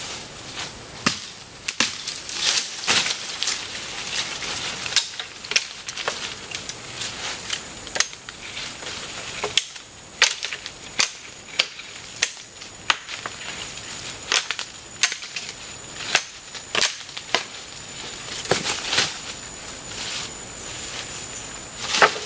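Irregular sharp cracks and snaps of side branches being chopped and broken off a long sapling pole, one or two strikes a second.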